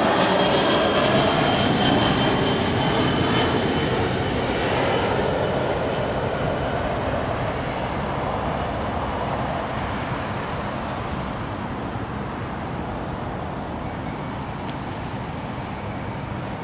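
Boeing 737 airliner's jet engines on approach and landing: a steady roar with a high whine that slowly falls in pitch. It is loudest at first and fades steadily as the aircraft descends onto the runway.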